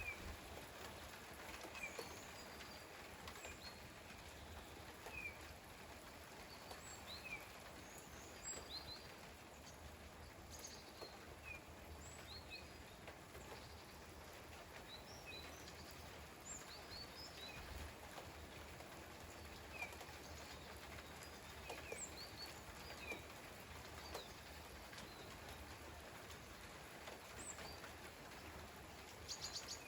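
Light rain falling with a steady, even hiss, and small birds giving short, high chirps every second or two.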